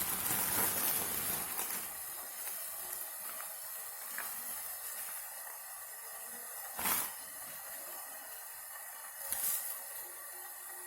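A steady hiss with three brief swishing rustles: one over the first second or two, one about two-thirds of the way in, and one near the end.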